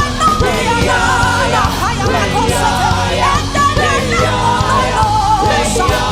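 Gospel worship music: several voices singing and shouting over instruments with a steady beat.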